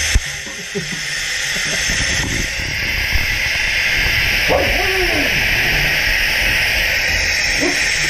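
Gaggia Cadorna Prestige super-automatic espresso machine frothing milk into a glass, with a steady hiss from the milk carafe spout. A dog whines briefly twice, about halfway through and near the end.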